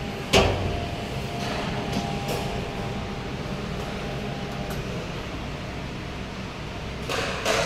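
Steady, fan-like machine hum with a sharp knock about a third of a second in and a brief rustle near the end.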